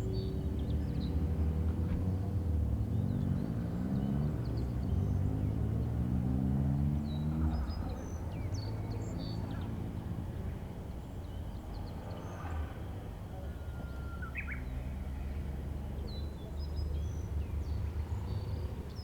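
A low engine rumble whose pitch climbs several times between about three and seven seconds in, as of a motor vehicle accelerating. Scattered short bird calls sound over it.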